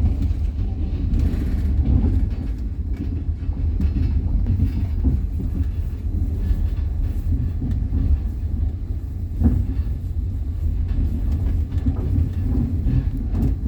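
Passenger train running, heard from inside the carriage: a steady low rumble with the knocking of the wheels over the rails, one sharper knock about nine and a half seconds in.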